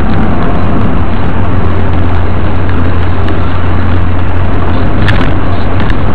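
Loud, steady engine and road noise inside a moving car's cabin, picked up by a dashcam microphone as a drone with a strong low hum. There is a brief knock about five seconds in.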